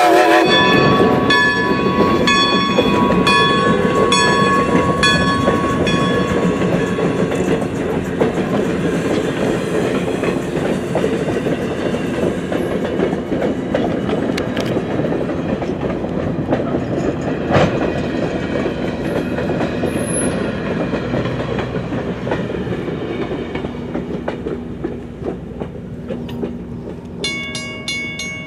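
Strasburg Rail Road No. 90, a 1924 Baldwin 2-10-0 steam locomotive, running with its train of passenger coaches: a dense rumble of working steam and rolling wheels with some regular clicking early on. The sound fades slowly as the train moves away.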